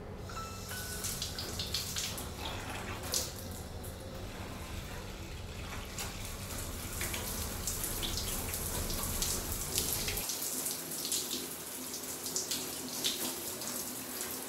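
Shower water running steadily, with small splashes and drips. A low hum underneath cuts out about ten seconds in.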